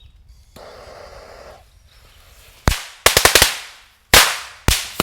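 A pack of Alien Star Bombs firecrackers going off: a short hiss of the burning fuse, then sharp bangs, one alone, then a rapid run of about five, then three more spaced out. They are plain crackers with no special effect.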